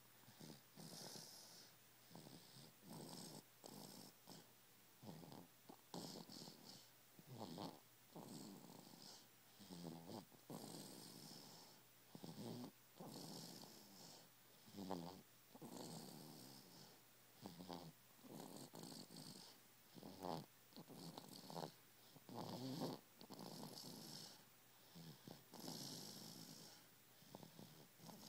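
A sleeping baby snoring softly: a rattling, purring snore on each breath, about one every two seconds.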